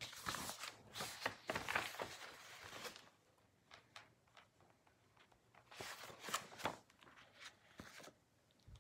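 Soft paper rustling and handling noises in two spells, the first in about the first three seconds and the second around six seconds in, with a few light ticks between them.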